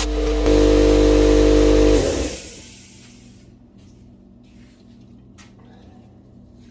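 A machine motor running steadily with a humming tone, getting louder about half a second in, then switching off about two seconds in and winding down to quiet.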